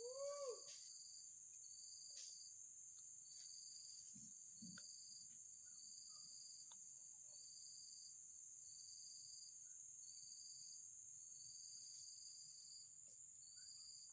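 Insects calling: a steady high-pitched drone with another insect chirping in short, regular pulses about once a second.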